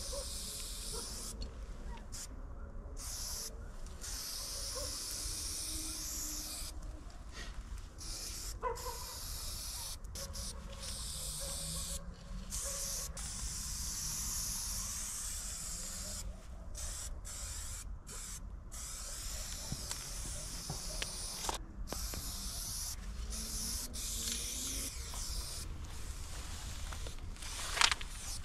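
Aerosol spray-paint can hissing against a wall in bursts of varying length, with short breaks as the painter pauses between strokes. A short sharp knock near the end.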